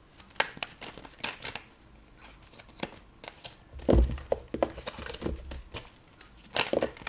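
A tarot deck being shuffled by hand: the cards slide and flick against each other in short, irregular rustles. There is a dull knock about four seconds in.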